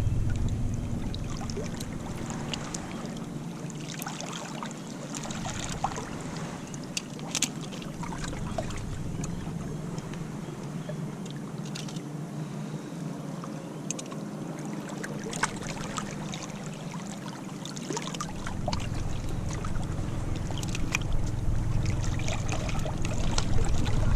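Wind buffeting the microphone and surf washing on a beach, with scattered small clicks and ticks throughout. The low wind rumble eases in the middle and builds again near the end.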